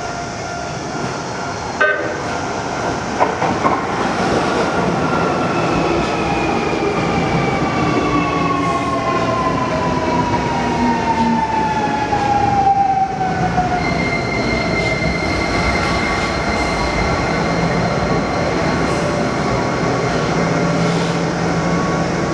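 Keio 1000 series electric train running through a level crossing, its wheels clattering and rumbling over the rails while its motor whine falls slowly in pitch. Steady electronic crossing-alarm tones ring over it.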